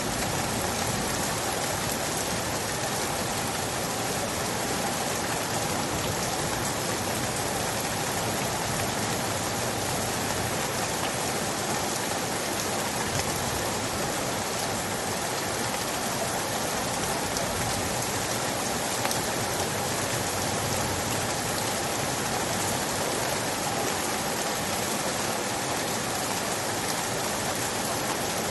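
Rain falling steadily: an even, unbroken hiss of many drops.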